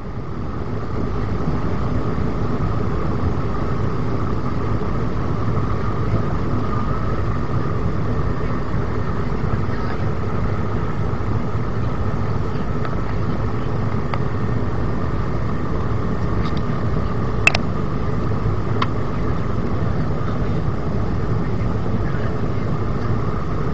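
Steady cabin noise inside an Airbus A220-300 in flight: the even rush of airflow and the hum of its Pratt & Whitney geared turbofan engines, with a faint steady higher tone running through it. A sharp click comes about two-thirds of the way through, and a fainter one follows a second later.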